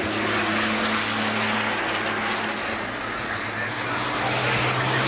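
Race truck diesel engines running hard as the trucks lap the circuit: a steady, loud engine drone over a wide hiss, its pitch stepping up slightly about four seconds in as another truck comes closer.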